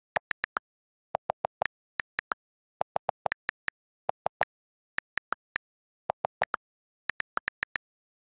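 iPhone on-screen keyboard key clicks as a message is typed, in quick bursts of taps with short pauses. There are two pitches of click: most are higher and some are lower.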